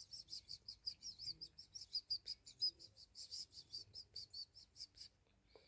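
Faint, fast series of short high-pitched chirps, about five or six a second, stopping about five seconds in.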